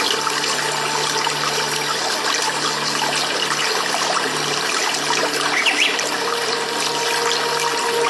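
Steady running water, trickling evenly, with soft held tones underneath that fade in and out.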